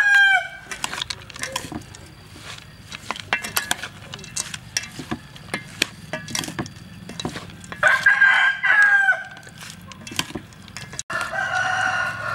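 A rooster crowing three times: the tail of one crow right at the start, another about eight seconds in, and a third near the end. Between them come short clicks and scrapes of a metal spoon and a wooden spoon tossing salad in a stainless-steel bowl.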